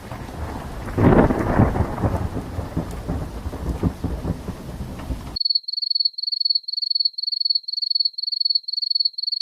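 Thunderstorm sound effect: rain with a thunder rumble, loudest about a second in, cutting off abruptly a little past halfway. Then a high electronic tone starts, pulsing about three times a second.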